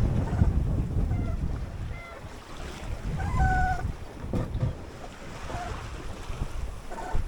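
Wind buffeting the microphone over open sea, with waves washing around a small sailboat; the wind gusts hardest in the first couple of seconds. A few short squeaks come through, the clearest about halfway.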